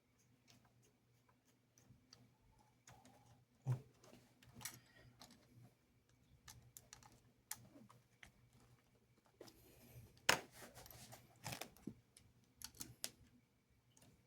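Faint small clicks and taps of plastic model-locomotive parts being handled and fitted together, with a louder knock about four seconds in and a cluster of clicks around ten to eleven seconds.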